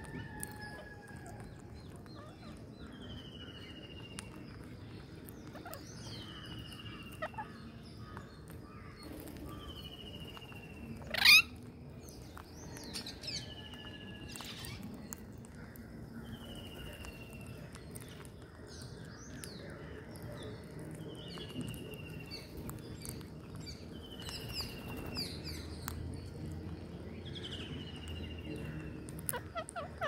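Birds calling around a feeding flock of rose-ringed parakeets. A short falling whistle-like call repeats every three to four seconds. A single loud rising screech, the loudest sound, comes about eleven seconds in.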